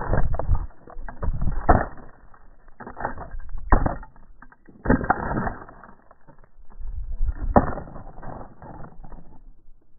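Onboard camera payload rattling and knocking in irregular bursts every second or two as it tumbles, dying away near the end.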